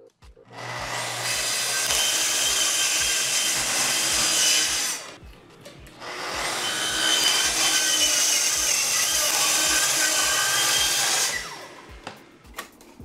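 Festool plunge-cut track saw cutting through a plywood panel along its guide rail: two cuts of about four to five seconds each, the motor winding up at the start of each and stopping after.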